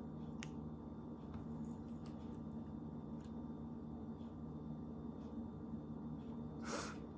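Quiet room tone with a steady low hum, broken by a few faint small clicks. A short breathy noise comes near the end.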